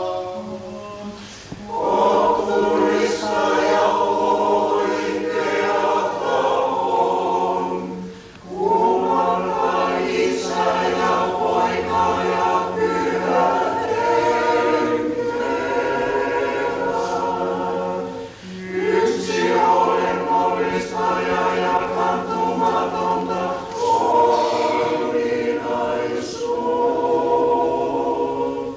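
Church choir singing Orthodox liturgical chant a cappella, in long held chords over a steady low note, with brief pauses for breath between phrases.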